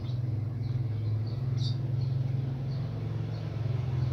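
A steady low mechanical hum, with a few faint short high chirps over it.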